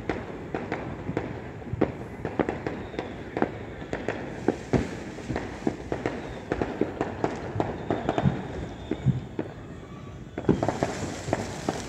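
Fireworks going off around the neighbourhood in quick, irregular bangs and crackles over a steady rumble, with a denser run of bangs near the end.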